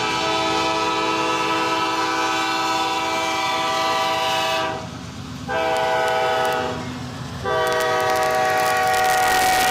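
Multi-chime diesel locomotive horn on a freight train: a long blast that ends about five seconds in, a short blast, then another long blast, in the long-long-short-long pattern sounded for a grade crossing. The low rumble of the passing train runs underneath.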